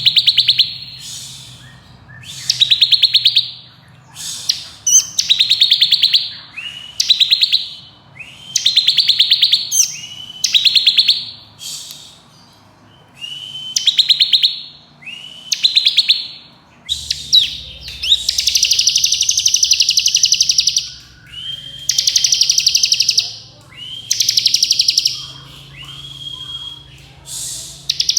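Bar-winged prinia (ciblek kristal) singing its 'ngebren' song: loud, fast rattling trills, often opened by a short rising note, repeated every second or two.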